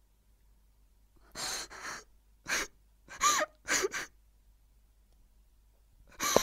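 A woman sobbing: a run of breathy gasps and short, falling cries starting about a second in, then a pause before another gasping sob near the end.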